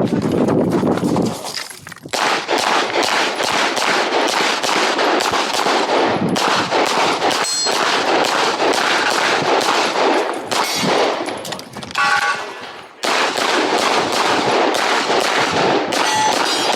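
Rapid strings of gunshots from a competitor shooting a USPSA practical-shooting stage. The shots come in fast bursts with short pauses about two seconds in and again near the end, with a few brief ringing tones among them.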